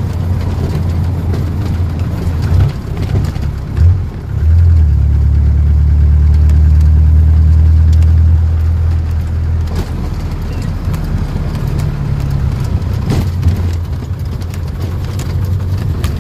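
Engine and road noise of a wooden songthaew (pickup-truck shared taxi) on the move, heard from its cab. A deep, steady engine drone grows louder from about four and a half seconds in, holds for about four seconds, then drops back. There are a couple of short knocks around three to four seconds in.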